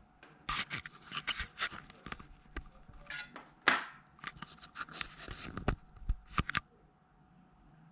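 Handling noises: a quick run of clicks, taps and scraping or rubbing sounds from about half a second in, stopping near the end.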